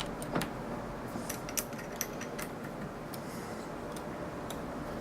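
Light, irregular clicks and taps of small tools and a wooden workpiece being handled at a small lathe, over a faint steady hum.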